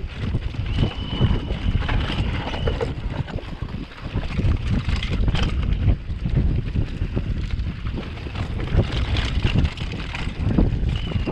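Downhill mountain bike rattling and clattering over a dry dirt and rock trail, with wind buffeting the microphone. A thin high tone sounds for about two seconds near the start.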